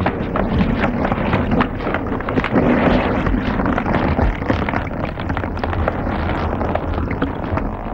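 Low rumbling noise thick with crackling, a theatrical fire or eruption sound effect.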